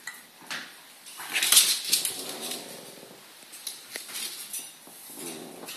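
A pet albino ferret moving about under a coffee table: scrabbling, light knocks and clatter, with a louder rushing burst about a second and a half in.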